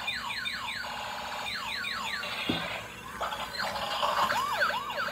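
Battery-powered bump-and-go police car toy playing electronic siren effects through its small speaker: quick repeated falling swoops, then warbling up-and-down tones near the end.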